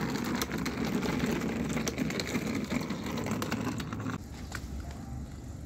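Wheels of a rolling suitcase rumbling and rattling over a concrete sidewalk, with many small clicks. The rumble stops about four seconds in.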